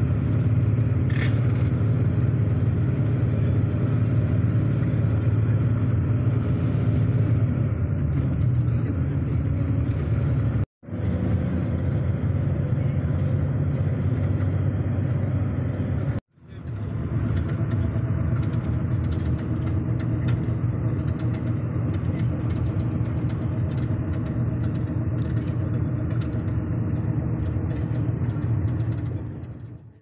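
Steady engine and road rumble of a moving road vehicle, with two brief sudden dropouts to silence about eleven and sixteen seconds in.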